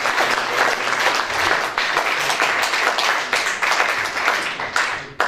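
Applause from the people in the room, many hands clapping at once, thinning out and stopping near the end.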